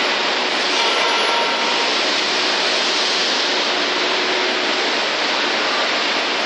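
Steady, loud machinery noise in a working steel-fabrication shed, an even hiss with a couple of faint steady hum tones, while an electric overhead travelling crane runs with a suspended load.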